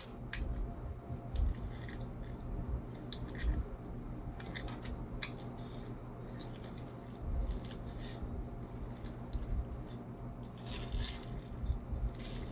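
A toy truck being handled and played with: scattered clicks and light knocks of its parts, over a steady low hum.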